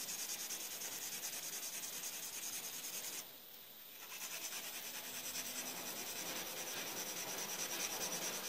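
Graphite pencil shading on paper: rapid, even back-and-forth scratching strokes as a swatch of a value scale is filled in, with a brief pause a little past three seconds in.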